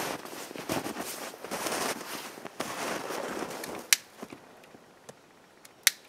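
Boots crunching and shifting in snow among rustling brush, then two sharp snaps about two seconds apart, the loudest sounds here.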